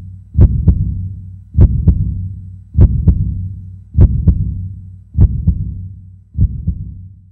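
Heartbeat sound effect: paired low thumps, lub-dub, about every 1.2 seconds over a steady low hum, the last beat a little fainter.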